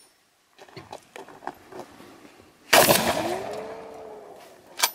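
One shotgun shot from a double-slug shell, about three seconds in, with a long decaying echo and a ringing tone just after it, the steel target being struck. A sharp click near the end.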